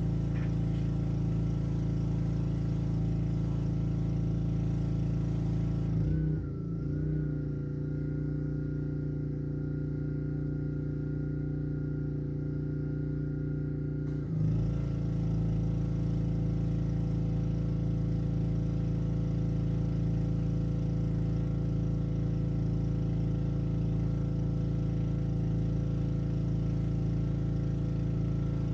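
Honda engine of a Black Max pressure washer running steadily. For about eight seconds in the middle the sound changes: the hiss drops away, a thin steady whine is left, and then the earlier sound comes back.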